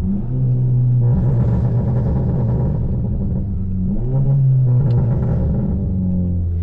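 Stage 1-tuned 2017 Volkswagen Jetta GLI's 2.0-litre turbocharged four-cylinder pulling hard under throttle. The note grows louder and fuller, eases briefly about four seconds in, pulls again, then settles back to a steady cruise near the end.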